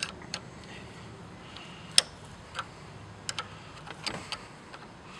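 Irregular metal clicks and clinks of hand tools, sockets and a ratchet being handled, with one sharp clink about two seconds in.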